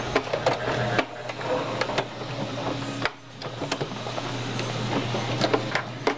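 Singer Heavy Duty sewing machine running as it stitches a seam through fabric: a steady motor hum with quick needle ticks, breaking off briefly about halfway and starting again.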